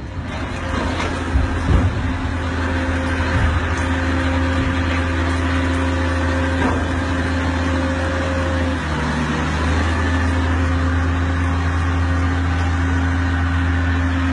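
Diesel engine of a truck-mounted crane running steadily, a deep drone, with a few sharp knocks in the first two seconds.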